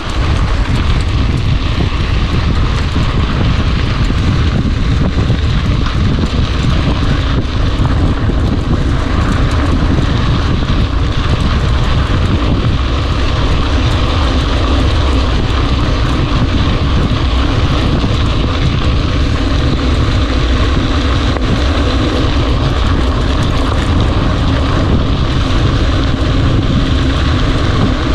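Heavy wind rumble on the microphone of a camera carried on a moving mountain bike: a loud, steady low buffeting with a rushing hiss over it.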